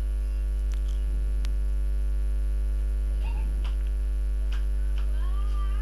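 Steady electrical mains hum, a low buzz with many overtones, with a few faint light clicks as a circuit board is handled. A faint wavering cry comes in near the end.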